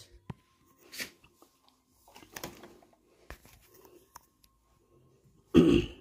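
Soft scattered clicks and rustles of a phone being handled and turned, then a single short, loud cough from a man near the end.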